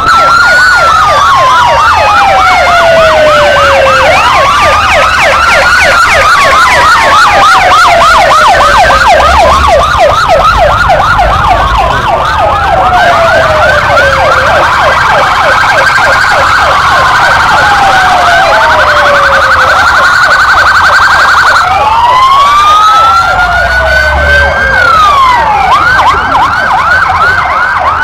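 Several police vehicle sirens sounding at once, loud throughout. Slow wails rise and fall every few seconds over rapid yelping sweeps.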